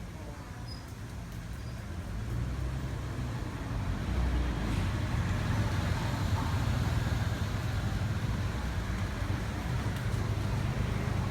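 A low, steady rumble of road traffic that swells over the first few seconds and then holds.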